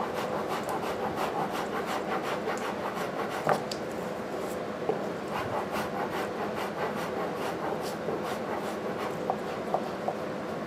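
Steady scraping and rasping as high spots are shaved off half-set, rubbery repair putty, with a few sharper clicks.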